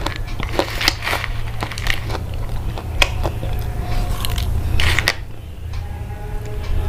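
Irregular crunching and crackling, a quick run of sharp clicks at uneven intervals, over a steady low hum. Faint held tones come in during the second half.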